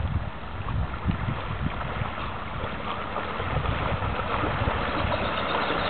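Wind buffeting the microphone in irregular low gusts, over a steady wash of moving water.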